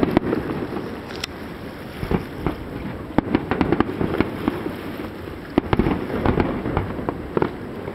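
Aerial fireworks shells bursting in quick succession: a dense run of sharp bangs and crackles over a continuous low rumble, with the loudest reports about three and five and a half seconds in.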